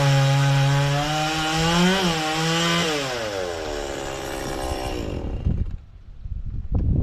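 Stihl two-stroke chainsaw running at high revs as it cuts a frangipani trunk. About three seconds in the throttle is released and the engine pitch falls steadily as it winds down, leaving a low rumble and a few thuds near the end.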